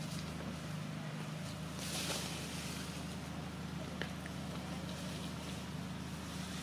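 A steady low mechanical hum, with a few faint ticks and a brief soft hiss about two seconds in.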